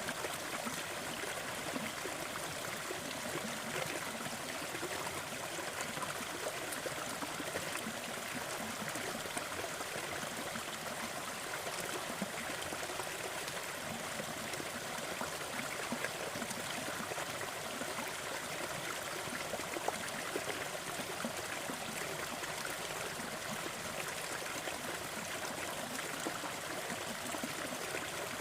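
Gentle forest waterfall flowing steadily: an even, unbroken rush of falling water.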